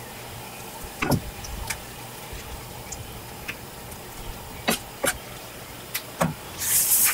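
A knife and squid knocking and slapping on a cutting board while squid is cleaned, several separate sharp knocks about a second apart. Near the end a tap comes on and water runs with a loud hiss.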